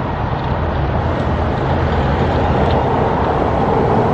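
Steady road traffic noise, a continuous rush of passing vehicles, with a low engine hum coming up near the end.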